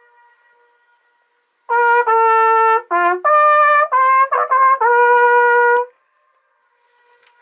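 Trumpet playing a short phrase of several notes, starting a little under two seconds in and ending on a long held note. Faint echoes of the notes come back off the cliff walls before and after the phrase.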